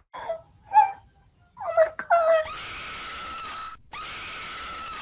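Several short wailing cries, the last ones falling in pitch, then a steady hiss with a high, even whine that breaks off briefly and resumes.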